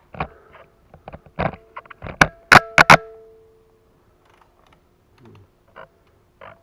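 Sharp metallic clicks and clanks of a wrench and socket working a bolt on a motorcycle's front axle and fork, several ringing briefly; the loudest cluster comes about two to three seconds in, followed by a few faint ticks.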